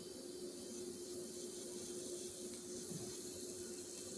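Faint, steady hiss of oil, onion and tomato starting to heat in a frying pan, with a steady low hum underneath.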